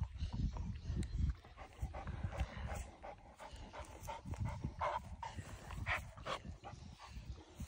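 Young Cane Corso dogs panting and snuffling at close range as they play in a heap on grass, in short irregular breaths. A low rumble sits under the first second and a half.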